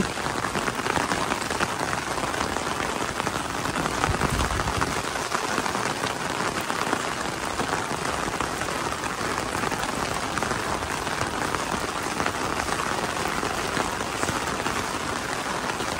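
Steady rain drumming on an umbrella held just overhead: a dense, even patter of drops on the fabric.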